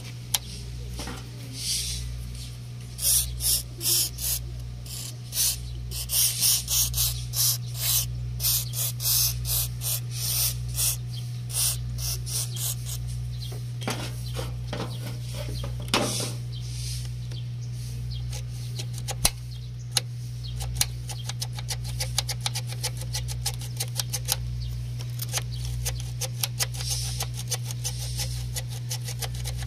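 Aerosol lubricant sprayed in a string of short hissing bursts onto a rusty, sticking hood latch, over a steady low hum. Near the end a run of quick faint ticks follows.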